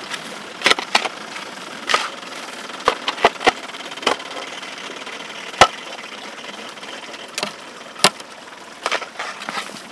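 Irregular sharp knocks of a digging tool striking soil and clods while backfilling around a transplanted tree's roots, about a dozen strikes, with a steady engine hum in the background.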